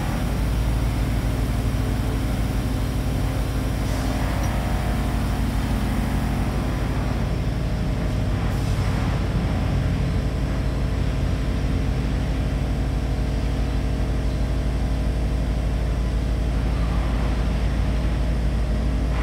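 Teksam SPSM1600 manhole-production machine running: a steady low hum of its motors and drive, unchanging throughout.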